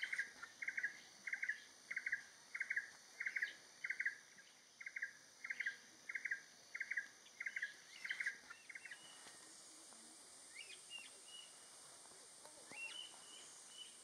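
Banded kingfisher calling: a series of about fourteen whistled notes, roughly one and a half a second, that stops about nine seconds in. A steady high drone of forest insects runs underneath, and a few faint bird chirps come near the end.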